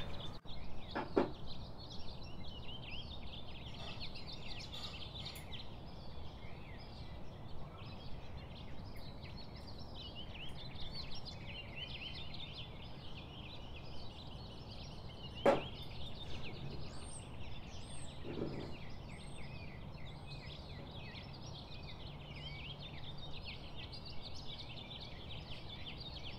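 A crowd of small birds chirping and twittering without pause, with a few higher whistled calls about two-thirds of the way through. A sharp knock comes about a second in and a louder one a little past halfway.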